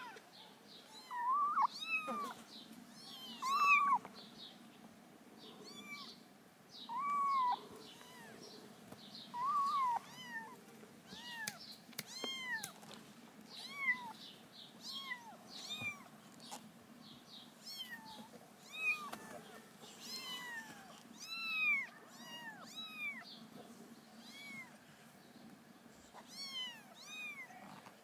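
Kittens mewing: many short, high-pitched mews in quick succession, with a few louder, lower, longer calls in the first ten seconds.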